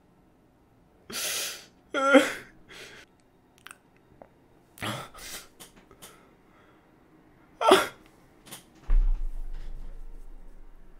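A man's breathy, choked sounds: sharp sniffs and sob-like gasps, the loudest with a short voiced catch. Near the end comes a low thump that fades out over a couple of seconds.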